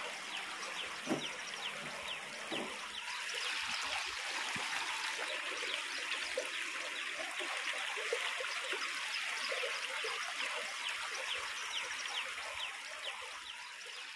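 Oil sizzling as puris deep-fry in a kadai: a steady sizzle full of small crackles, easing off near the end.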